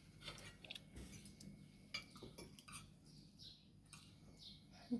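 Faint, scattered clinks of cutlery against plates and dishes at a meal.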